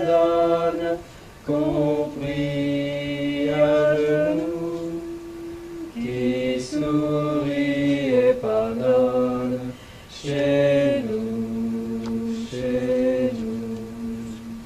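Sung mantra chant: voices holding long notes in phrases of a few seconds, with short breaks between phrases.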